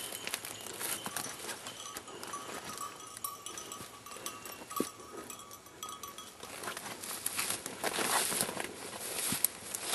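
A hunting dog's collar bell ringing steadily. About two-thirds of the way through, the rustle and crackle of footsteps pushing through brush takes over and grows louder.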